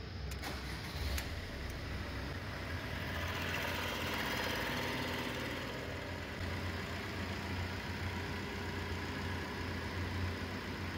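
Common-rail diesel car engine idling steadily, with a low, even hum.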